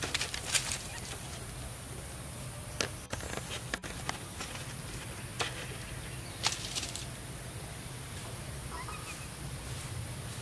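Outdoor ambience: a steady low rumble and a steady high hiss, with scattered sharp clicks and ticks, a cluster of them right at the start and more a few seconds in. A faint short chirp sounds near the end.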